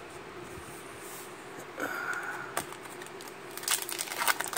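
Foil wrapper of a Pokémon BREAKpoint booster pack crinkling and tearing as it is pulled open, a quick run of sharp crackles starting about three-quarters of the way in. Before it, a short soft hiss and a single click from handling the cards.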